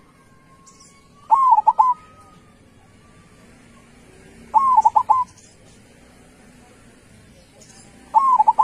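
Zebra dove (perkutut) singing: three short cooing phrases of quick notes, about three seconds apart.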